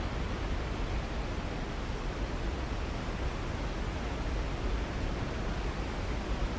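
Waterfall rushing, a steady, unbroken roar of falling water with a deep low rumble under it.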